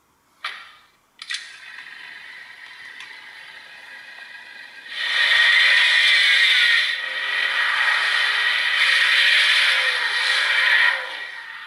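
Small greeting-card sound module playing its recorded sound through a tiny speaker after a couple of clicks, getting much louder about five seconds in and cutting off suddenly near the end: the magnetic switch turning the module on and then off.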